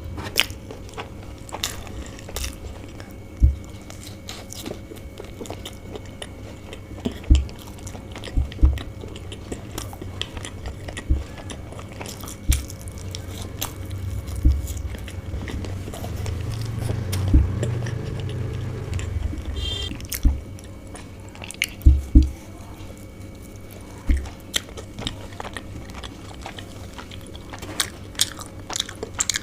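Close-miked eating of chicken bao buns: soft wet chewing and biting with many small mouth clicks, broken by about a dozen sharper low thumps.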